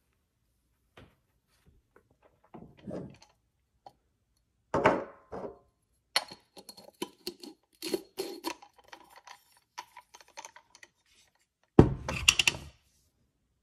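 Comandante C40 hand coffee grinder being handled: knocks, then a run of small clicks and scraping as the glass catch jar is screwed onto the threads of the wooden body, and near the end a heavy thunk with clinks as the grinder is set down on the counter.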